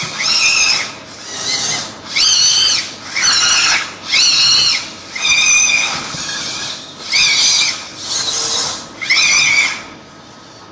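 Robotis Dynamixel servo motors of a robotic hand whining in short bursts about once a second as the fingers move between poses, each burst a high geared whine that rises and falls in pitch. They stop near the end.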